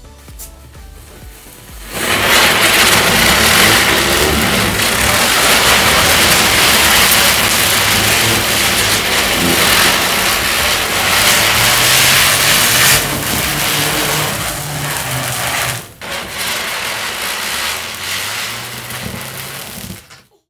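Diwali firework burning with a loud, steady, fizzing hiss as it throws out sparks. It starts about two seconds in, breaks off briefly near the sixteen-second mark, then carries on more quietly and dies away near the end.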